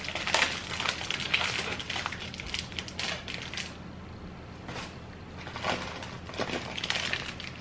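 Plastic cookie wrappers crinkling and crackling as they are torn open by hand. The crackles come in irregular clusters, with a short lull about four seconds in.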